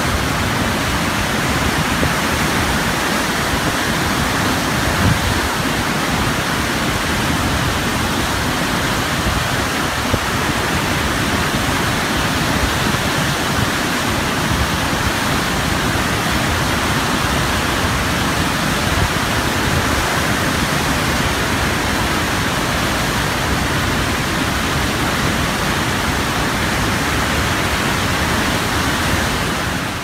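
Fast-flowing, turbulent whitewater rushing in a steady, even roar of noise, unchanging throughout.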